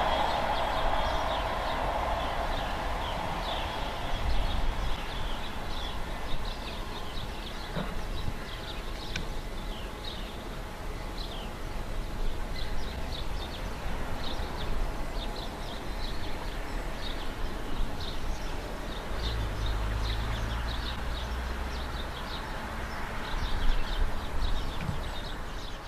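A Class 158 diesel multiple unit's sound dies away over the first few seconds, leaving small birds chirping repeatedly over a steady low rumble.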